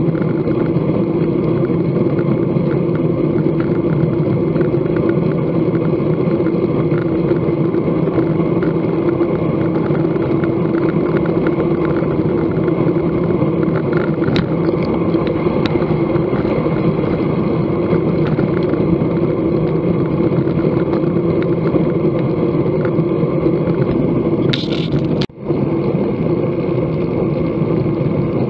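Steady wind and tyre noise from a bicycle riding at about 30 km/h, picked up by a camera mounted on the bike. It cuts out for an instant near the end.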